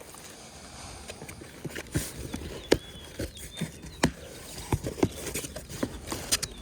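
Irregular clicks and light knocks from a new condenser fan motor and its packaging being handled and unpacked.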